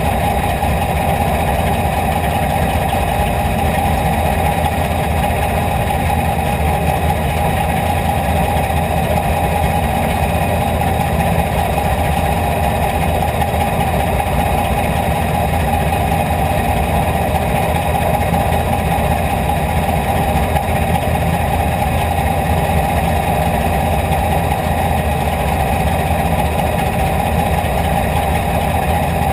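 IMCA Hobby Stock race car engine idling steadily, heard from inside the car's cockpit.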